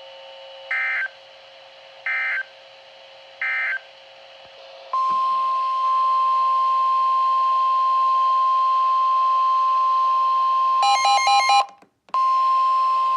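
NOAA Weather Radio Emergency Alert System signalling. Three short, buzzy SAME end-of-message data bursts about a second and a half apart close the previous warning. Then the steady, loud, high 1050 Hz warning alarm tone starts, which announces the next warning. Near the end the tone is broken by a brief burst of warbling beeps and a moment's dropout, and then it resumes.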